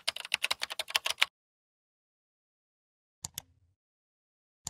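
Computer keyboard typing sound effect: a rapid run of key clicks that stops about a second in, followed by silence and a quick double mouse click a little over three seconds in.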